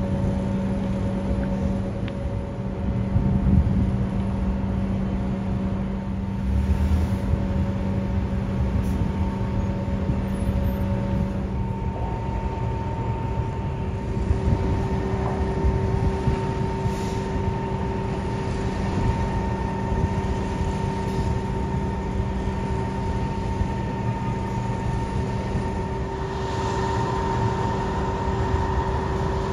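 Steady low rumble of a ship's engines, with a drone of several steady pitched tones. One tone drops out about a third of the way in, and a different one comes in a few seconds later.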